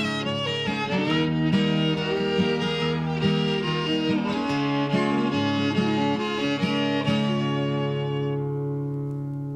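Instrumental ending of an acoustic folk song, fiddle over guitar, with no singing. The notes move until about seven seconds in, then a final chord is held and slowly fades.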